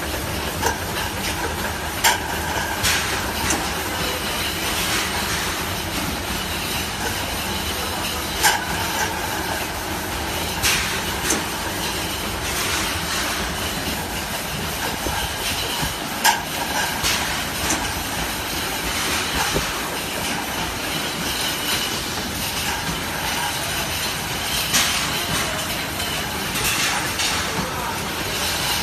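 Automatic six-head pneumatic paint filling machine and its can conveyor running: a steady mechanical running noise with a handful of sharp clacks at irregular intervals.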